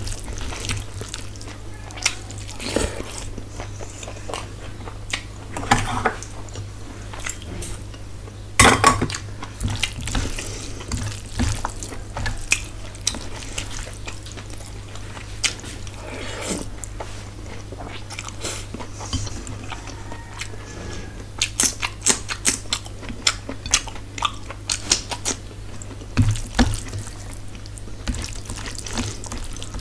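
Close-miked eating by hand: fingers squelching and mixing rice with curry, and chewing with wet mouth sounds, heard as irregular sharp clicks and squishes, the loudest about nine seconds in. A steady low hum runs underneath.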